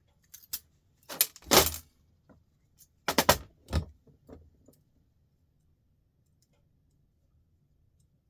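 Small metal scrap pieces clinking and rattling as they are handled and dropped, in a few short clusters of sharp clicks over the first four or five seconds.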